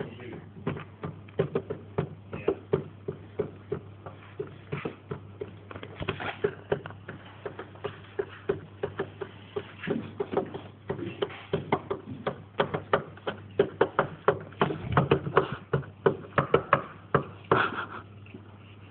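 Dense, irregular tapping and clicking, several strokes a second, over a steady low hum.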